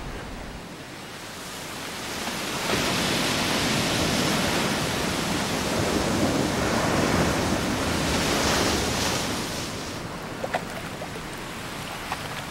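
Ocean surf washing and breaking on a rocky shore, a steady rush of water. It swells about three seconds in and eases off after about ten seconds.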